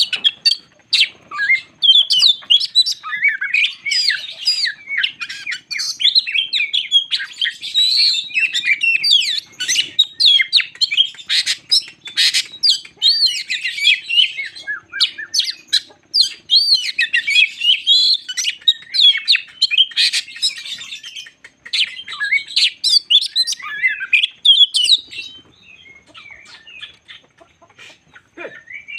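Oriental magpie-robin singing a long, rapid, varied song of whistles, slurred glides and chirps. It thins to a few quieter notes near the end.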